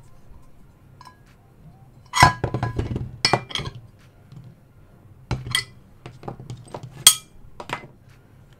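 Small cast iron pans clinking and knocking as they are handled and set down, in three short bursts of clatter about two, five and seven seconds in.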